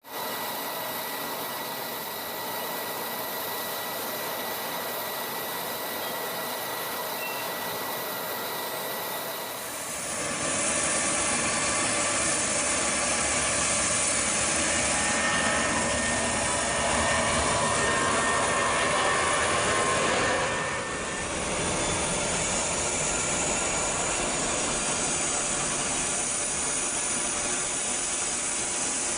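Jet engines of a Lion Air Boeing 737 at takeoff: a steady roar with a thin whine, growing louder about ten seconds in, dipping briefly around two-thirds of the way through, then holding loud.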